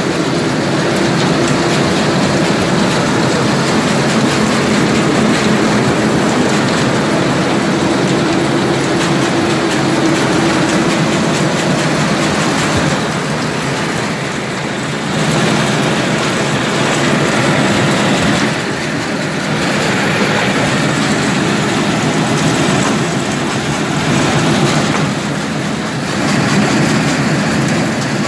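Palm kernel oil mill machinery running: a loud, steady mechanical rumble and clatter, easing slightly a few times in the second half.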